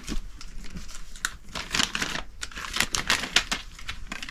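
Crinkling and rustling of packaging being handled, made of many quick irregular crackles and small clicks that come thickest in the second half.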